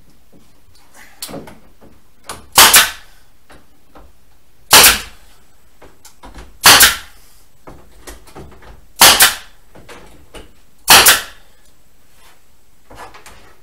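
Pneumatic nail gun fired overhead into the camper's roof spars: five sharp shots about two seconds apart, with faint clicks between.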